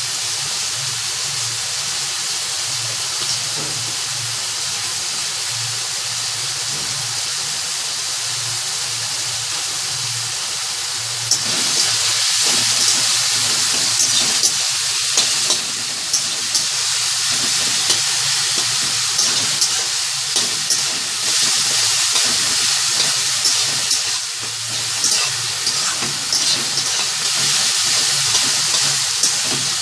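Chopped onions and tomatoes with spices sizzling in hot mustard oil in a pan. About eleven seconds in, the sizzle grows louder, with frequent sharp clicks and scrapes of a spatula stirring the mixture.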